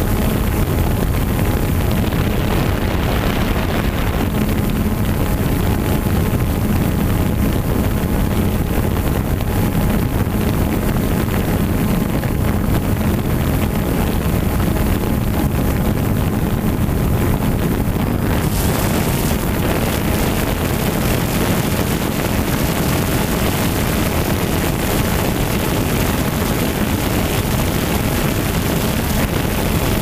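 DJI Phantom 2 quadcopter's electric motors and propellers running steadily, recorded by the GoPro Hero3 carried on the drone, with wind across the microphone. It is a loud, even whirring hum with a steady drone underneath, and the hiss turns brighter about eighteen seconds in.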